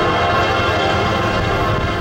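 Union Pacific freight locomotive's air horn blowing one long, steady multi-note chord, over a low rumble.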